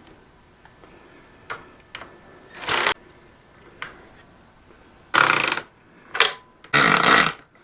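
A small power driver running in short bursts, about four of them half a second long, with a few light clicks of tools between, as bolts are run down into lock nuts.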